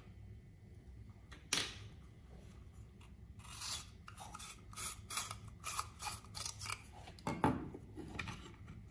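Plastic LED bulb housing handled in the hands: a sharp click about a second and a half in, then a run of short scraping rubs of plastic, with a louder knock about seven seconds in.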